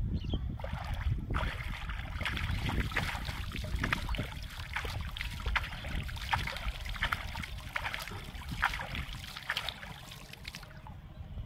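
Shallow muddy water splashing and sloshing as hands work in it: a busy run of many small splashes that starts about half a second in and stops about a second before the end. A low wind rumble on the microphone runs underneath.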